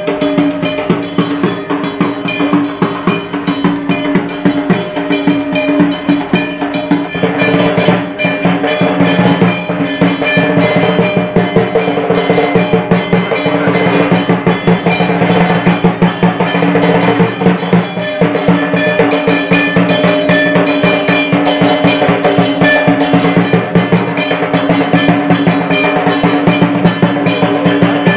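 Music with fast, continuous drumming and metallic percussion over a few held tones.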